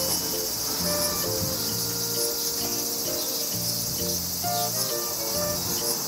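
A steady, high-pitched insect chorus, with soft background music playing low, slowly changing notes beneath it.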